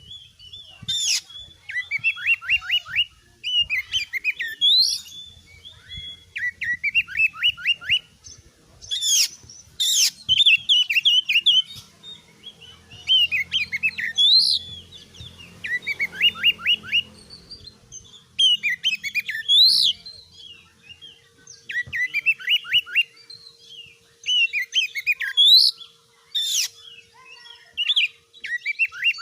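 Oriental magpie-robin (kacer) in full, continuous song: short phrases of quick falling notes and sharp rising whistles, one after another every second or two with only brief pauses.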